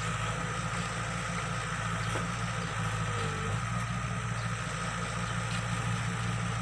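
Hydraulic excavator's diesel engine running steadily as the machine is worked, with a thin steady high whine above the engine note.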